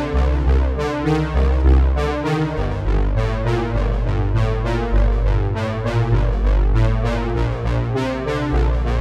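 Background music on synthesizer and electric keyboard, with a strong, steady bass line.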